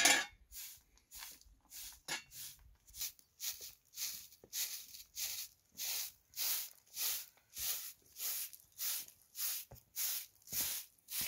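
A short hand broom of dried grass sweeping a packed dirt yard, in a steady rhythm of brisk scratchy strokes about two a second, with one louder stroke right at the start.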